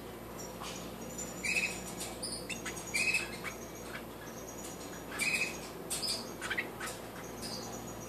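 Short, high-pitched bird chirps in four brief bouts a second or two apart, at a nest where a variegated goldfinch hybrid is feeding its nestlings.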